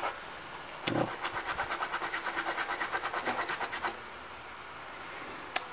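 A small brush scrubbing a pen drive's circuit board with isopropyl alcohol, rapid back-and-forth strokes about ten a second for some three seconds, starting about a second in, to clean the soldering spot. A single click near the end.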